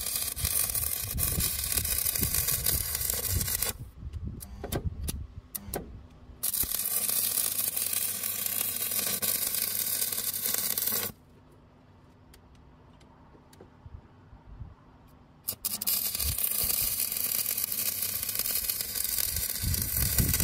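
Shielded metal arc (stick) welding with a Biltema 2.4 mm E7014 electrode: the arc crackles and hisses steadily in three runs. A few sharp clicks about four to six seconds in are the rod being struck to restart the arc, and the arc is out from about eleven seconds to fifteen and a half.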